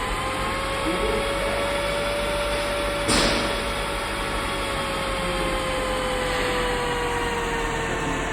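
CNC engraving machine running while engraving text: a steady whine that drifts slowly up and then down in pitch over a noisy hum, with one brief sharp click about three seconds in.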